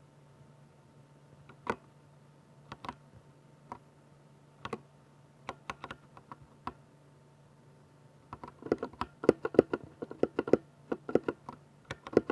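Typing on a Ducky 60% mechanical keyboard with silver linear switches: scattered single keystrokes at first, then rapid continuous typing from about eight seconds in.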